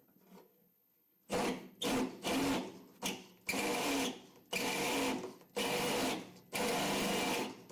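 Hand file rasping back and forth on the edge of a hole in a sheet-steel firewall, enlarging it: about seven strokes at roughly one a second, starting a little over a second in.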